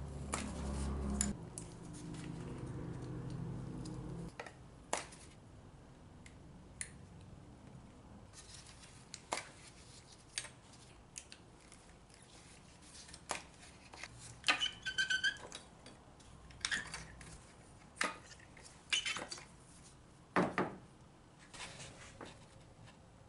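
Scattered sharp plastic and metal clicks and knocks as the ignition coils and their connectors are unplugged and lifted off a 2012 Honda Civic's four-cylinder engine, with a quick run of rapid clicks about halfway through. A low rumble fills the first four seconds.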